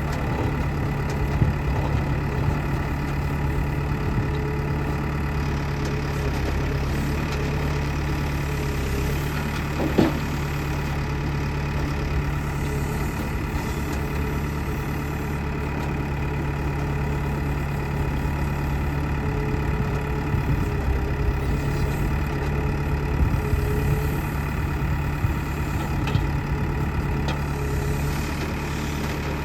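Backhoe loader's diesel engine running steadily at a constant speed, with a single sharp knock about ten seconds in.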